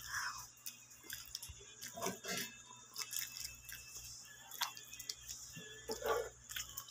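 A small child chewing and smacking her lips while eating with her fingers: scattered soft clicks, with a few brief murmurs about two seconds in and near the end.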